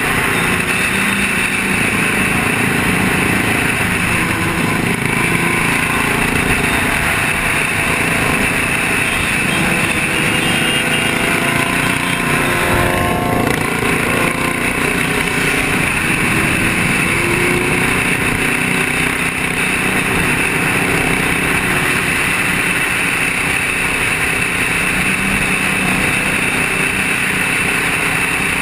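Motorcycle engines running at highway speed under heavy wind noise on a helmet-mounted camera's microphone, with a short rising engine note about halfway through.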